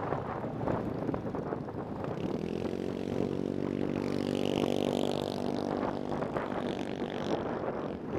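Motorcycle riding at steady speed: wind buffets the microphone throughout, and a steady engine note comes through from about two seconds in before fading near the end.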